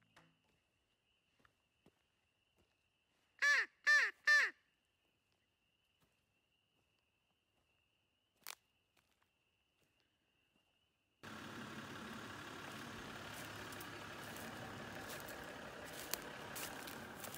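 A crow cawing three times in quick succession, loud and hoarse, about four seconds in. From about eleven seconds on, steady rustling and footsteps through grass and brush take over.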